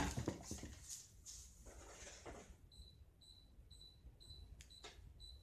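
Faint electronic beeping from a kitchen appliance's timer alarm, signalling the dumplings cooking on the stove: short high beeps about twice a second, starting about halfway through. Before it, light rustling of things being handled on the table, and a sharp click near the end.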